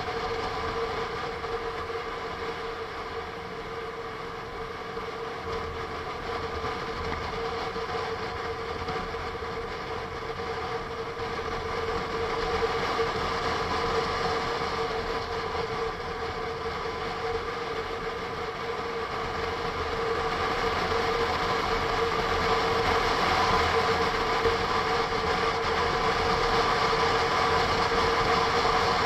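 Honda NC750S DCT motorcycle's parallel-twin engine and drivetrain running at a steady pitch while cruising, heard from an onboard camera with wind rush. It grows a little louder about two-thirds of the way through.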